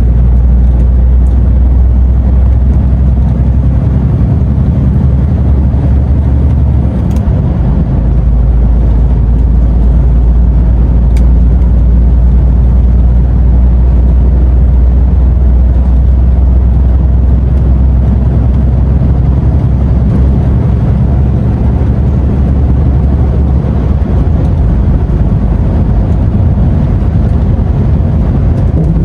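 DAF XF truck cruising, heard from inside the cab: a steady low diesel engine drone mixed with road and tyre noise.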